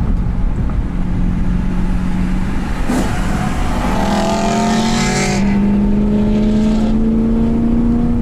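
BMW M3 E92's naturally aspirated 4.0-litre V8 with a modified exhaust, heard from inside the cabin: a steady engine note, a sharp click about three seconds in, then the engine pitch rises steadily as the car accelerates.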